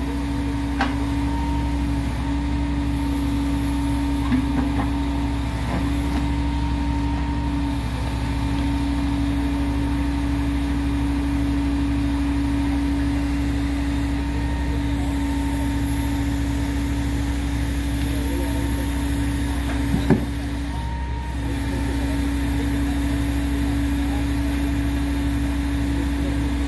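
Heavy engine of track-work equipment running steadily with a constant humming tone, with a few light metal knocks and one sharp metallic clank about 20 seconds in.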